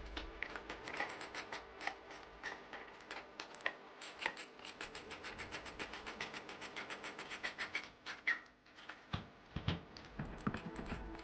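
Ratchet wrench clicking in quick runs as the bolts holding a Zodiac FloPro pool pump's wet end to its motor are tightened, with a few heavier knocks near the end.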